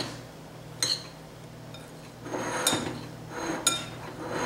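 A utensil stirring chopped cooked chicken and seasonings in a glass mixing bowl. Soft scraping is broken by three sharp clinks of the utensil against the glass, each ringing briefly: one about a second in and two more near the end.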